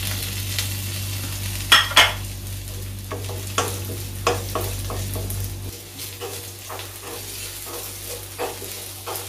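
Shallots, coconut pieces and freshly added curry leaves sizzling in hot oil in a pan, stirred with a spoon that clicks and scrapes against the pan a dozen or so times.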